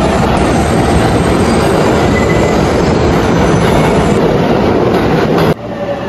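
Train wheels running on track: a loud, steady rumble and rattle that cuts off abruptly about five and a half seconds in.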